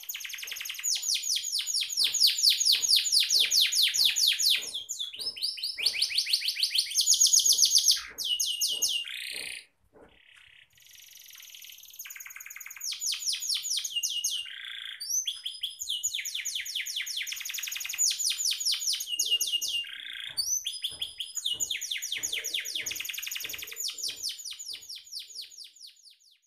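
Domestic canary singing a long, fast, high-pitched song of rapid trills and repeated chirping notes, with a short break about ten seconds in.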